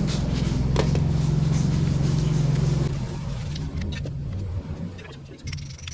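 A Milwaukee cordless impact driver running under load with a rapid buzzing hammer, stopping about three seconds in, followed by a few clicks and knocks of tool handling.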